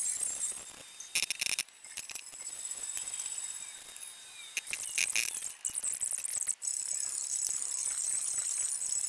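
MIG welder tack-welding a replacement rear quarter panel onto the car body: a crackling sizzle in short bursts, loudest about a second in and again around five seconds, over a steady high hiss.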